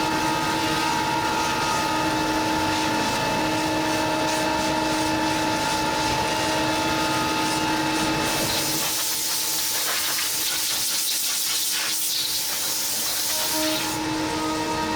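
CNC router running on an acrylic panel, a steady machine whine with a few fixed pitches. From about eight and a half to fourteen seconds in, a strong hiss takes over and the low hum drops away.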